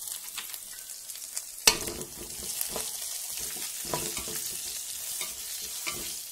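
Chopped onions and red chilli powder sizzling in hot groundnut oil in a metal pot. A sharp clack of a spoon against the pot about a second and a half in, then the spoon knocking and scraping as the mixture is stirred.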